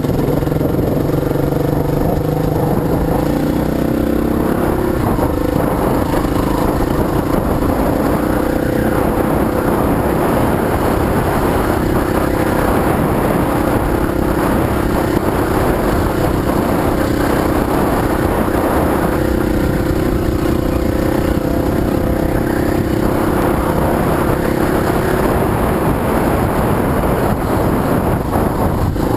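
Dirt bike engine running steadily as the bike rides along a dirt track, its pitch shifting slightly with the throttle, under heavy wind noise on the helmet-mounted microphone.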